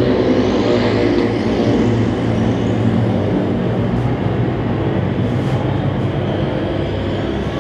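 Several small-engine race cars running together on a dirt track: a steady, loud drone of overlapping engine notes, with slight rises and falls in pitch as they go around.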